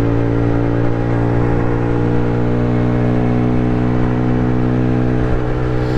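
Small sport moped's engine running at steady revs while cruising. Its exhaust is really loud, with an even, unchanging drone.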